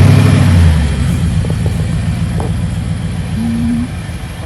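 Nissan Titan's V8 engine running just after starting, at a fast idle that is loudest in the first second and then settles to a steadier, slightly quieter idle. A short steady tone sounds about three and a half seconds in.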